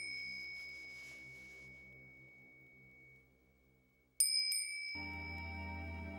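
A small metal handbell rung by hand: its clear ring dies away slowly over about three seconds, then it is shaken again about four seconds in with a few quick strokes and rings on. Low sustained background music comes in near the end.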